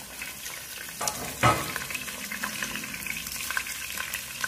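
Salmon fillets frying skin-side down in hot olive oil: a steady sizzle with scattered crackles and one louder pop about a second and a half in.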